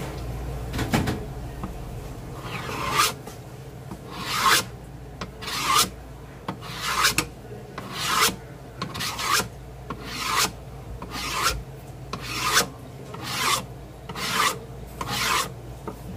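A long fish knife scraping along a plastic cutting board in about a dozen pushing strokes, roughly one a second, as the blade slides between the skin and flesh of a halibut fillet to skin it.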